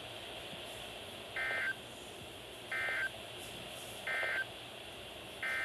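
Emergency Alert System SAME digital data bursts: three short, identical, buzzy two-tone warbles about a second and a half apart, the end-of-message code that closes the warning, with a fourth burst starting near the end and running on.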